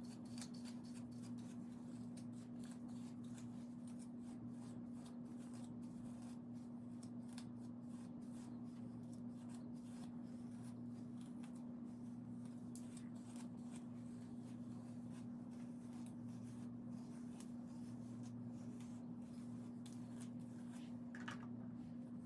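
Quick, continuous rustling and crackling of a comb and fingers working through natural hair while detangling, over a steady low hum.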